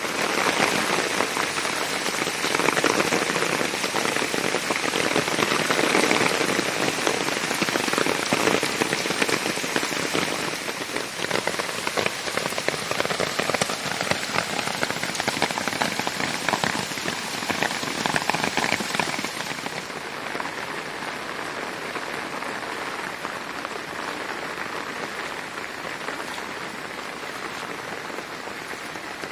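Heavy rain falling onto flooded ground and standing water, a steady dense hiss of countless drops splashing; it turns somewhat softer about two-thirds of the way through.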